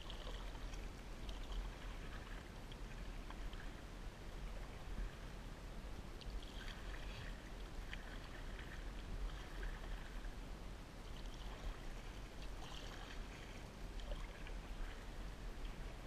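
Canoe being paddled: paddle strokes dipping and splashing, with water lapping along the hull, coming every second or few over a steady low rumble.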